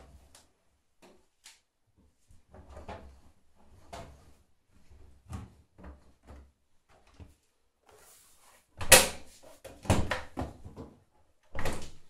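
Laundry being pushed into a front-loading washing machine drum with soft rustles, then the porthole door being shut against the overfull drum: a few loud knocks and clunks in the last few seconds, the last one near the end.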